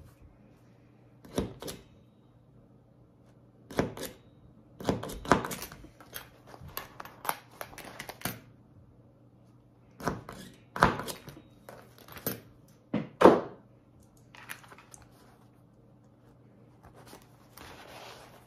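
Rivet work on a vinyl bag flap: a series of sharp knocks and clicks from a hand hole punch and metal rivet parts as holes are made and rivets fitted in the flap's corners. The knocks come in clusters about a second and a half in, from about four to eight seconds, and from about ten to thirteen seconds. The vinyl rustles near the end, over a steady low hum.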